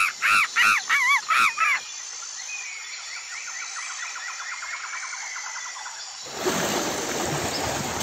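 A chimpanzee's pant-hoot at its climax: a run of loud hoots climbing into high, arching screams that stop about two seconds in. Then a soft, fast buzzing trill of a grasshopper stridulating, followed from about six seconds by a louder, steady rush of noise.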